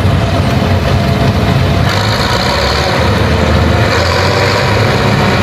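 Diesel engine of harvest machinery running steadily and loud, a low engine hum under a broad mechanical rush.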